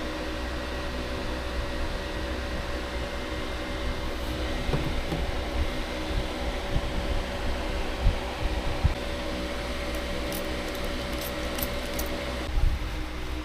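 A steady mechanical hum, like a running fan, with a few fixed tones in it. A few soft knocks and light clicks come from the work toward the end, and the hum stops shortly before the end.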